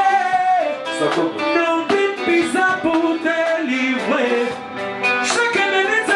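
Live band playing Congolese popular dance music, with a singer's voice over the band.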